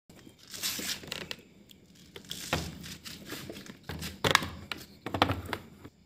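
Irregular rustling and crinkling with light knocks from hands handling wires and plastic connectors in a washing machine's opened control panel, in several uneven bursts.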